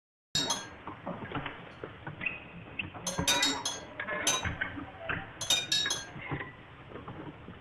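A series of sharp, ringing clinks, several coming in quick clusters, over a fainter background murmur. The sound starts suddenly just after the start and cuts off abruptly at the end.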